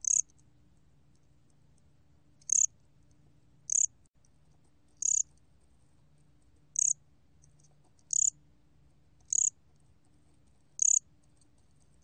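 곰귀뚜라미 (bear cricket) singing at 23 °C: short, high chirps repeated about every one and a half seconds, eight in all.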